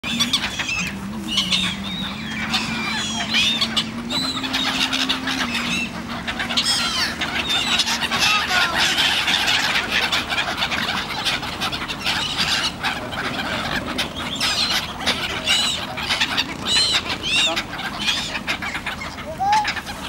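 A flock of black-headed gulls calling, many short high cries overlapping one another without pause. A low steady hum that shifts in pitch lies under them for the first eight seconds or so.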